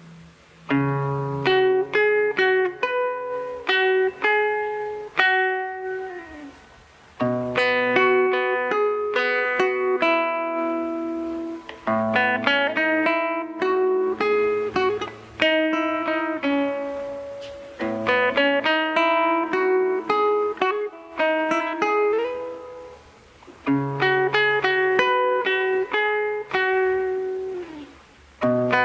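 Solo nylon-string classical guitar played live without singing: a fingerpicked instrumental passage in phrases of about six seconds, each opening with a bass note and letting the notes ring out before the next phrase.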